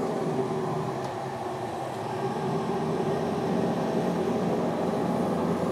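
Traeger pellet grill running on high with its lid open, its fan giving a steady whirring hum.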